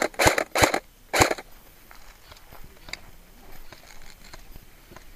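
Airsoft rifle firing four quick single shots in the first second and a half, each a short sharp crack, followed by faint scattered ticks and scuffs.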